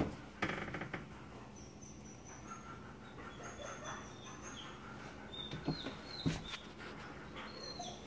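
A dog whining faintly in thin, high, wavering squeaks, with a few soft knocks near the start and again past the middle.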